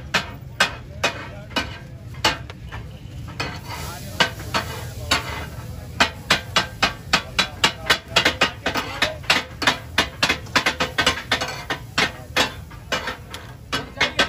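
Katakat cooking: steel spatulas striking rapidly on a hot iron tawa griddle as fish is chopped and fried, a rattling metal clatter of about three to five strikes a second over the sizzle. The strikes thin out for a few seconds early on, leaving the sizzling, then pick up again.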